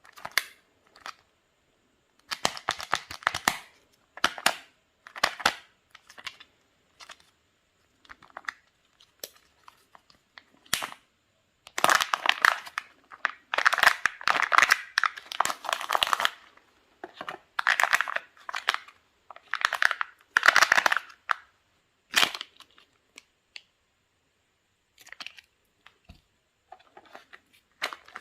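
Foil wrapper of a Kinder Surprise chocolate egg crinkling and tearing as it is unwrapped by hand, in irregular bursts with short pauses, loudest about halfway through.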